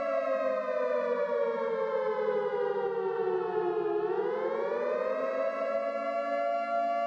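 Civil defense siren sounding a chord of several tones. Its pitch glides slowly down for about four seconds, swings back up over the next two, then holds steady.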